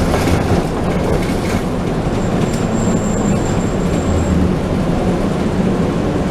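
Inside a moving city bus: the engine runs steadily under road noise, and a thin high whine sounds for about two seconds in the middle.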